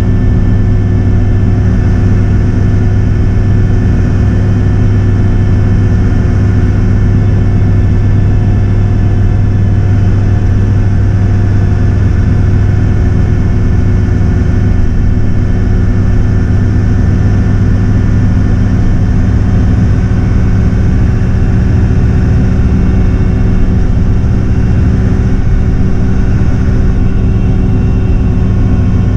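Daewoo BH117H coach's diesel engine running steadily at cruising speed with road noise, heard from inside the cabin as a constant low drone.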